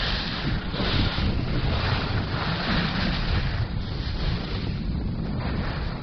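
Wind buffeting a camera's microphone while skiing fast downhill: a loud, rushing roar that swells and eases every second or so.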